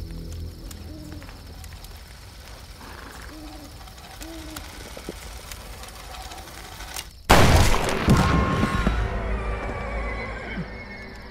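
One sudden, loud gunshot about seven seconds in from a long gun fired at close range, ringing on for a couple of seconds. A horse whinnies during the ringing.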